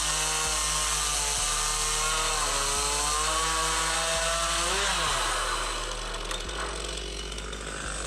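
Chainsaw on a Logosol Farmer's chainsaw mill cutting through wood, its pitch wavering under load and dropping about five seconds in, followed by a rougher, slightly quieter cutting noise.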